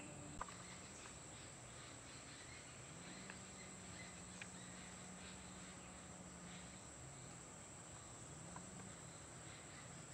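Faint natural outdoor ambience: a steady high-pitched insect drone with a few faint ticks.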